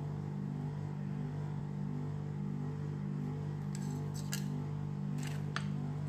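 A steady low hum throughout. A few light clicks of a spoon against a ceramic bowl come in the second half.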